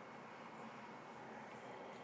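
Faint steady background noise with no distinct event.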